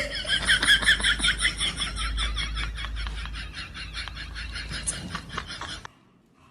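An animal making rapid, high chirping calls, about six a second, growing fainter before cutting off suddenly near the end.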